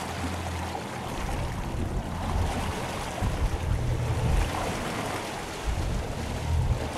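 Water rushing and churning along the hull of a moving offshore fishing boat, with wind buffeting the microphone and a low engine rumble underneath.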